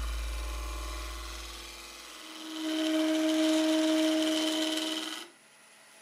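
Wood lathe spinning a resin-and-wood hybrid blank while a gouge cuts it: a steady motor hum with a hissing cut. It starts about halfway in and stops abruptly near the end.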